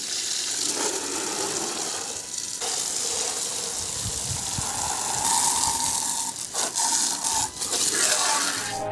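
Water spraying or gushing, a steady rushing hiss with a few brief dips near the end.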